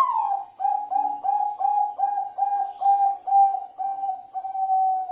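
Zebra dove (perkutut, Bangkok strain) singing its cooing song: an opening note, then a string of short, evenly spaced coos at about two and a half a second, ending in a longer held coo near the end.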